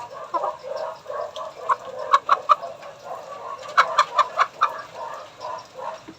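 Chicken clucking repeatedly, with runs of sharper, louder clucks about two and about four seconds in.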